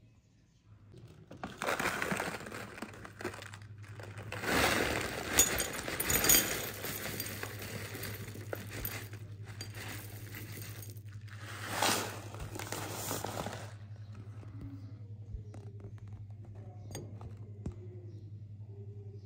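Crunchy muesli clusters rattling and clinking as they are scooped with a metal spoon from the bag and poured into a ceramic bowl, with the bag rustling; the rattling comes in spells with brief pauses. After about 14 seconds only a few faint clicks remain over a low steady hum.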